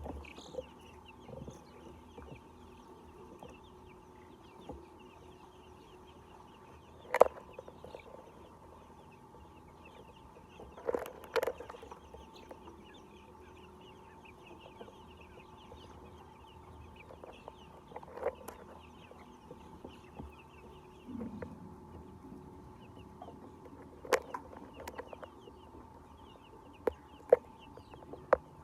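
A flock of egg-laying hens clucking and chattering continuously over a steady hum, with about eight sudden, sharp louder sounds scattered through.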